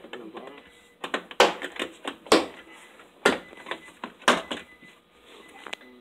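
Four sharp knocks or clicks about a second apart, with lighter clicking between them.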